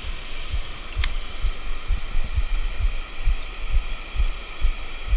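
Regular low thumps, about two a second, over a steady high hiss.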